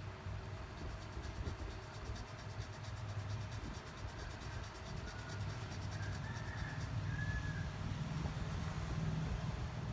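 Steady low rumble of background noise, with a few faint short chirps about halfway through.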